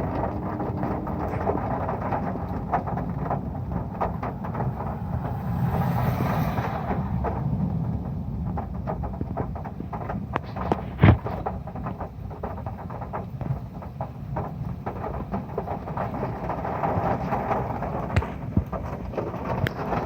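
Heavy rain drumming on a metal roof, a dense patter of separate drop hits over a steady wash. A low rumble swells a few seconds in, and one loud sharp hit stands out about halfway through.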